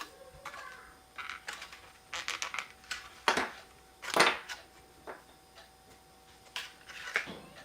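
Set plaster princess figures being worked out of their craft moulds: scattered clicks, crackles and taps, with the two loudest snaps about three and four seconds in.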